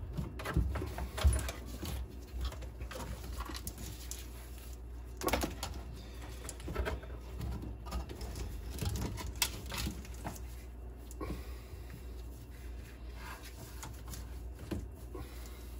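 Scattered rustles, light clicks and knocks of electrical wires being handled and pulled through the bilge by gloved hands, over a low steady hum.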